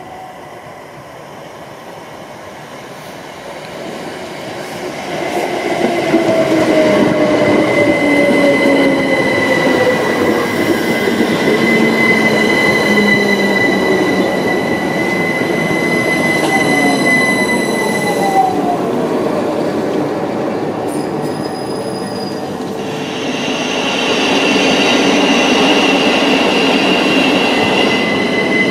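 Great Northern Class 387 electric train running in along the platform, wheels rumbling, its motor whine falling in pitch as it slows, under a steady high squeal. About two thirds of the way through, the sound changes abruptly to another passing electric train, and a whine rising in pitch comes in near the end.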